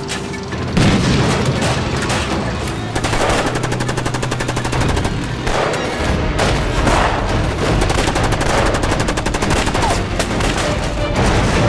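Dense bursts of machine-gun and rifle fire, starting suddenly about a second in and running on in rapid strings. Under the first few seconds, motorcycle engines run with a steady low hum.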